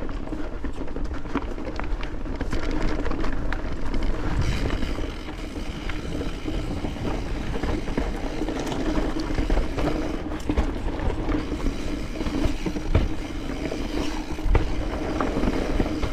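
Mountain bike being ridden along a rough dirt trail: a steady hum from the bike and trail, with scattered knocks and rattles as it goes over roots and rocks.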